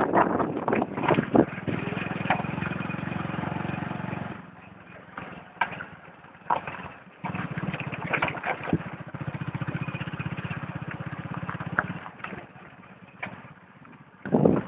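Motorcycle engine running steadily, dropping away for a few seconds about four seconds in and again about twelve seconds in before picking up. Scattered sharp knocks and rattles during the quieter stretches.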